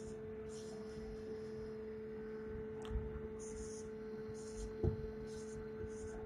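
Marker pen writing on a whiteboard: a series of short, faint scratchy strokes with a couple of light taps, over a steady low electrical hum.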